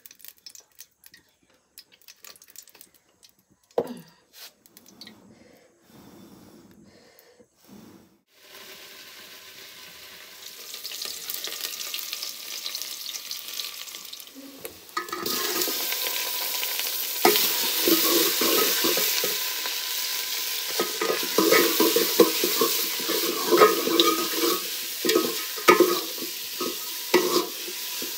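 Scattered knocks and clicks of pots being handled, then oil in an aluminium pot over a wood fire starts to hiss. About halfway, the sizzle jumps louder as the food goes into the hot oil, and chicken frying is stirred with a spoon that scrapes and clinks against the pot.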